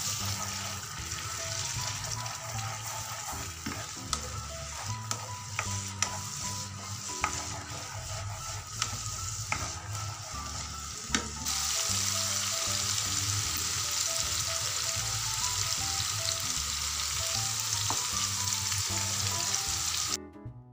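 Chili sambal paste sizzling as it fries in oil in a frying pan while being stirred with a wooden spoon, with a few sharp clicks of the spoon against the pan. The sizzling grows louder about halfway through and cuts off abruptly just before the end.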